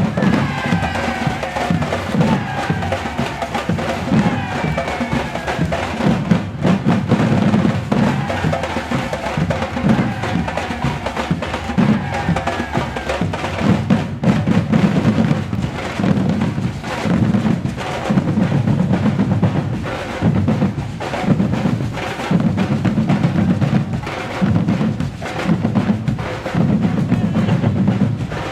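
Batucada drum ensemble playing: deep bass drums pounding a steady rhythm under dense snare and hand-drum rolls.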